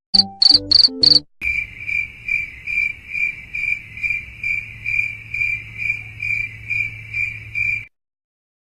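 Cricket chirping sound effect, the stock gag for an awkward silence after a joke falls flat: a steady high chirp repeating about two to three times a second, then cutting off near the end. It is preceded by three short stabs of sound in the first second or so.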